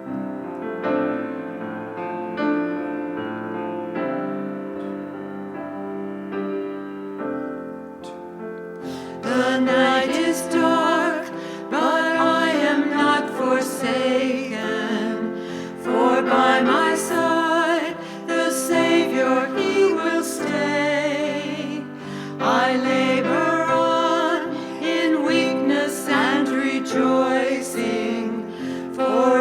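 A closing worship song: a keyboard introduction of held chords, with a singer's voice coming in about nine seconds in, sung with vibrato.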